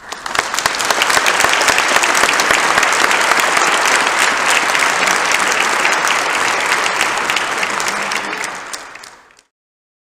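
Audience applauding, with hands clapping close by; the applause starts suddenly, holds steady, then fades and cuts off about nine seconds in.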